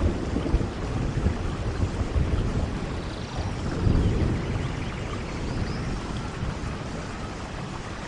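Steady rain falling, with a low rumble that swells and fades, strongest about four seconds in. Faint high chirps sound now and then.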